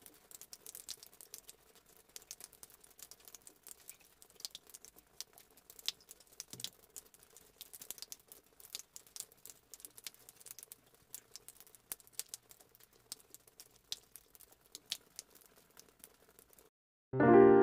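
Faint, irregular patter of light clicks and crackles over a low steady hum. Piano music starts abruptly near the end.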